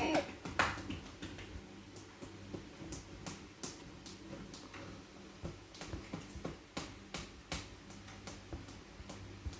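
Light, irregular clicks and taps of utensils and hands working melted chocolate into a silicone pop-it mould, with one sharper tap about half a second in.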